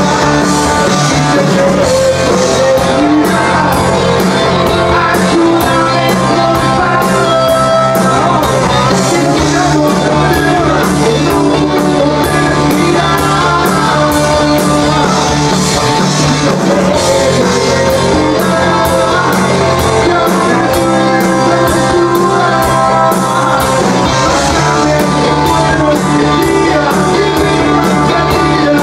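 Live rock band playing loudly: electric guitars and a drum kit with a steady cymbal beat, and a male vocalist singing into a handheld microphone.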